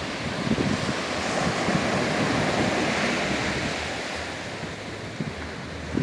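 Sea waves surging on a sandy beach: one wash of surf swells for a couple of seconds and dies away, with wind rumbling on the microphone.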